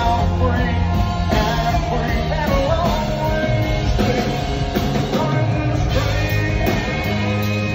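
Live country-rock band playing loud through the PA, with electric guitar and a male lead vocal.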